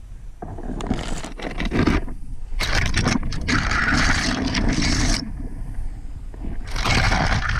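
Fir and bare branches brushing and scraping against a body-worn camera and the wearer's gear as he pushes through the trees, in three long bursts of rustling over a low steady rumble.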